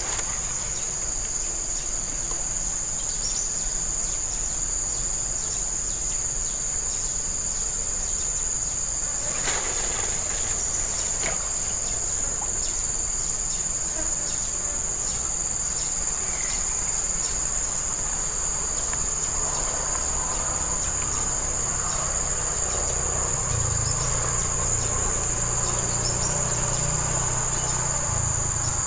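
Steady chorus of insects in riverside vegetation: a continuous high-pitched buzz that does not let up. A brief rustle or knock about ten seconds in.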